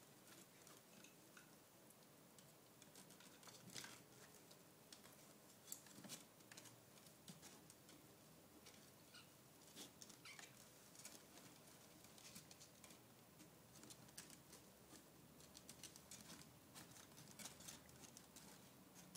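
Faint, irregular scratching, rustling and soft patters of kittens' claws and paws on the fabric sides of a laundry basket and the laundry inside it as they scramble about.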